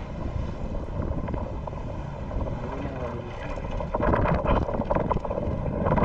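Boat engine running under wind buffeting the microphone, a steady low rumble that grows louder about four seconds in.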